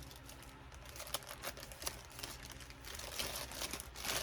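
Packaging rustling and crinkling as lace pieces are handled and unwrapped: irregular crackles that get busier about three seconds in.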